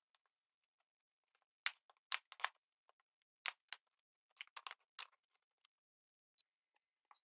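Plywood pieces and bar clamps being handled and fitted: a close run of short wooden knocks, clicks and scrapes over about three and a half seconds, then a single sharp, ringing metallic click.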